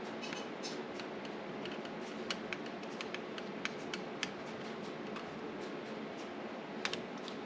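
Phillips screwdriver turning long door-lever mounting screws in by hand, giving small irregular clicks and scrapes as the tip works in the screw heads, over a faint steady background noise.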